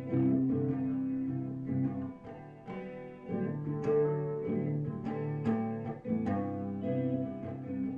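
Instrumental passage between sung lines of a solo singer-songwriter's song: the accompaniment plays on without a voice, with new notes struck every half second to a second and left ringing.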